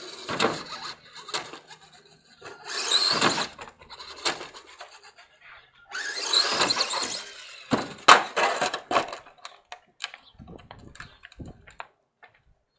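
RC monster truck running on concrete: two spurts of the motor revving with a rising whine and tyre noise, then sharp knocks, the loudest about eight seconds in as the truck crashes and tumbles onto its roof, followed by scattered clicks.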